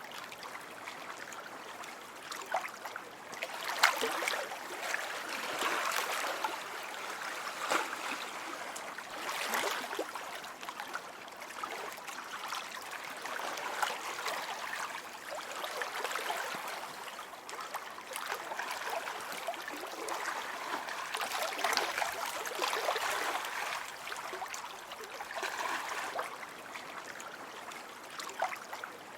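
Lake water lapping and splashing, swelling and easing every few seconds, with a few sharper splashes.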